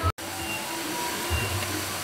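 Steady rushing noise of a waterfall, with low rumbles of wind buffeting the microphone. The sound cuts out for an instant just after the start.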